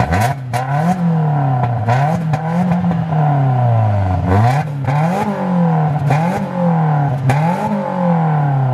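The supercharged 1.8-litre four-cylinder of a Toyota Yaris GRMN being free-revved at standstill, heard at the exhaust tip. There are about six quick throttle blips, each rising fast and falling away slowly.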